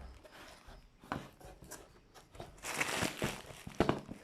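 Packaging being handled and unwrapped: intermittent rustling and crinkling of plastic wrap with scattered light taps, busiest past the middle.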